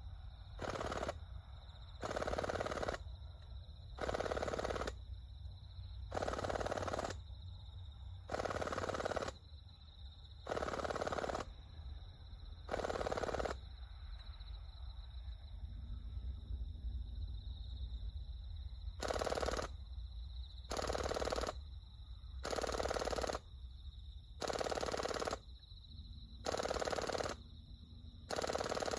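Gas-powered airsoft P90 dry-fired without BBs in short bursts, each about half a second long, heard from about 30 m away. The bursts come roughly every two seconds, with a pause of about five seconds midway.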